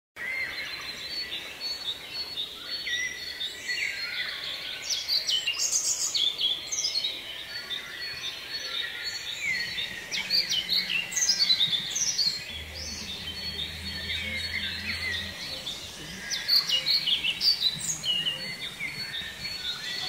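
Songbirds singing and calling from the trees: many short high chirps and quick falling notes, overlapping, with a thin steady high tone underneath.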